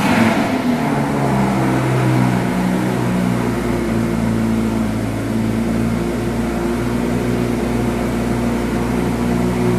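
Lamborghini Gallardo LP560-4 Spyder's V10 engine catching and starting, flaring at first, then settling over a few seconds to a steady idle.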